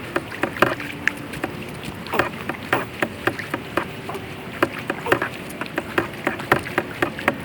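Kayak being paddled through thick pond vegetation: water splashing and dripping off the paddle, with frequent irregular clicks and taps.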